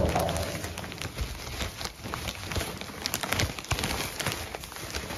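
Wood shavings poured from a plastic bag into a metal stock tank: a steady spray of many small crackles and rustles on the tank floor, opening with a loud knock.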